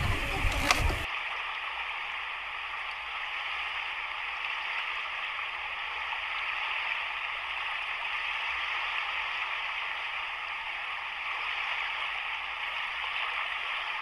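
Sea surf washing on a rocky, pebbly shore, heard as a steady, even hiss that starts abruptly about a second in.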